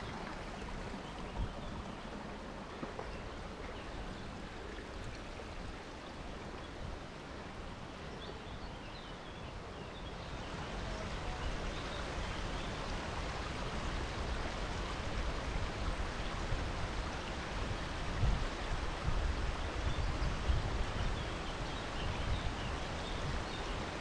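Mountain stream rushing over rocks, a steady noise that grows louder about halfway through, with irregular low thumps underneath.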